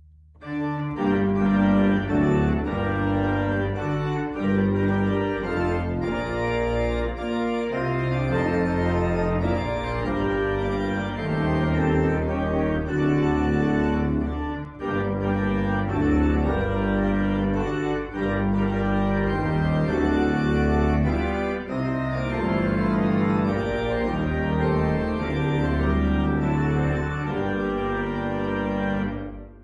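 Church organ playing a loud, full postlude in held chords on the manuals, with deep pedal bass notes beneath. It comes in about half a second in.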